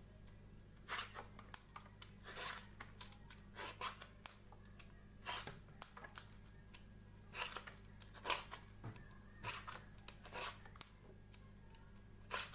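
Vegetable peeler scraping the skin off a butternut squash: short scraping strokes, a few in quick succession, then a pause, again and again.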